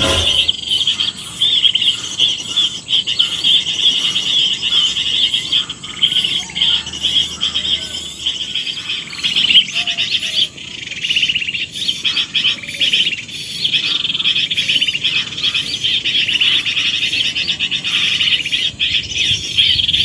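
Birds chirping and calling continuously in a dense chorus, with a steady insect drone underneath.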